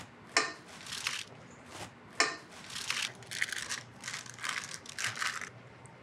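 Offset metal spatula spreading and pressing stiff shortbread crust dough into a parchment-lined baking pan: a series of short scraping strokes with the paper crinkling, and two sharp knocks, about half a second and about two seconds in.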